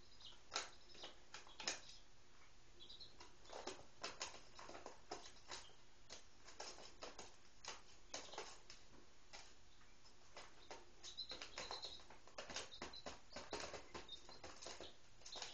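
Three-day-old Speckled Sussex and Rhode Island Red chicks pecking and scratching on newspaper, a faint irregular patter of small taps. There are a few short high peeps about three seconds in and again about eleven seconds in.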